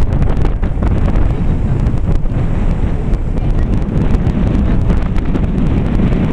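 Wind buffeting the microphone: a loud, steady low rumble with crackling.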